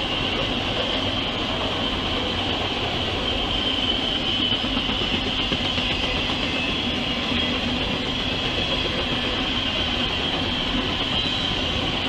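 Freight train of autorack cars rolling past: a steady rumble of wheels on rail, with a steady high-pitched tone above it.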